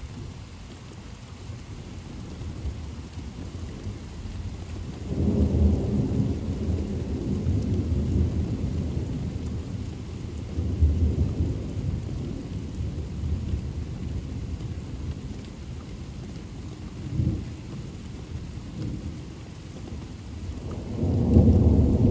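Steady rain falling, with thunder rumbling over it. A long low roll starts about five seconds in and dies away slowly, a short clap follows later, and a louder peal begins near the end.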